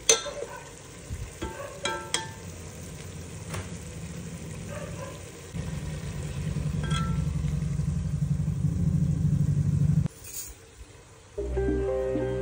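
Steel ladle clinking and scraping against a steel pot of simmering, sizzling masala gravy as the oil is scooped off. A steady low rumble sets in about halfway through and cuts off sharply a few seconds later.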